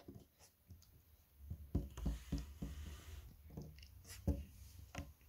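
Soft, scattered knocks and rubbing from hands handling things on a wooden tabletop, with a low rumble from about one and a half to three seconds in.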